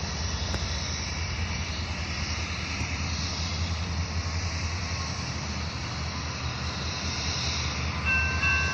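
Union Pacific diesel locomotive running with a steady low rumble as it passes. Near the end its air horn starts to blow, a chord of several steady tones.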